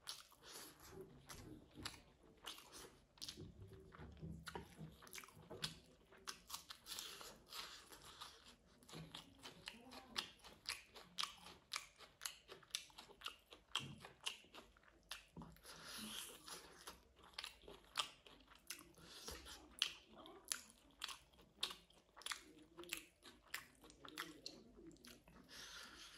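A person chewing a mouthful of food close to the microphone, mukbang-style: quiet, with many small irregular clicks and smacks of the mouth.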